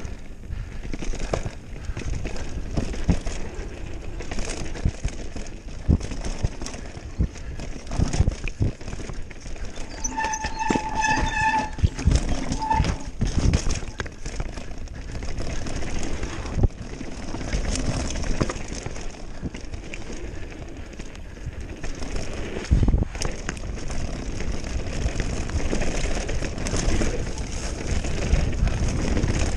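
Mountain bike riding fast down rocky dirt singletrack: tyres crunching over gravel and stones, with frequent knocks and rattles from the bike over bumps and steady wind noise on the camera microphone. A brief high-pitched tone sounds a little past ten seconds in and again briefly near thirteen seconds.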